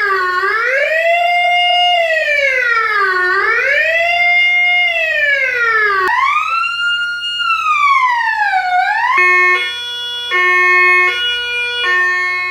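Electronic siren of a Hella RTK-4 SL HU police lightbar, changing tones: a wail that rises and falls slowly twice, then one longer sweep up and down from about six seconds in, then from about nine seconds in a stepped tone jumping between several fixed pitches.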